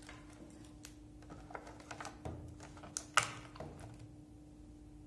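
Light clicks and taps of small accessories being handled and lifted out of a plastic box insert, a cluster of sharp ticks with the loudest about three seconds in.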